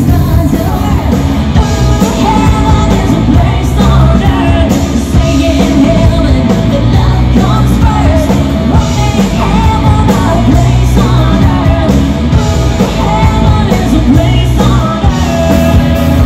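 Live rock band playing loudly through a PA: a woman singing over electric guitars, bass and drums.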